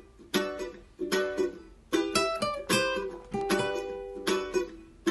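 Acoustic string instruments, guitar and a smaller ukulele-like guitar, strumming chords in a steady rhythm, each chord ringing out and fading; the instrumental intro before the vocal.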